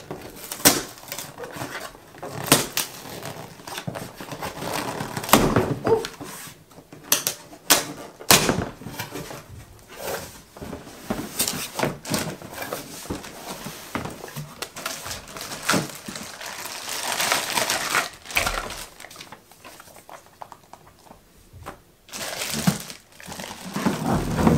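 Unboxing noises: a cardboard box being opened and plastic-wrapped vacuum cleaner parts rustling and crinkling, with many scattered knocks and clicks as the parts and hose are lifted out.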